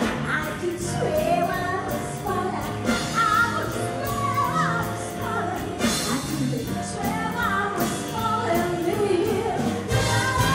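A woman singing live with a big jazz band, with piano, drums, bass, saxophones and brass behind her.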